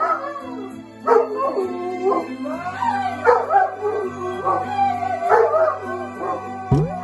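A dog howling along to a song playing in the background, with a man and a woman singing along with it.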